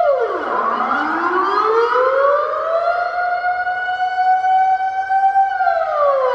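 Air raid siren wailing. Its pitch drops sharply at the start, climbs back up over about three seconds, holds steady, then starts to fall again near the end. Echoes trail the gliding pitch.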